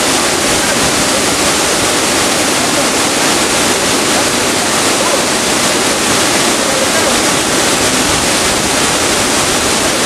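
Waterfall pouring into a rock pool: a loud, steady rush of falling water.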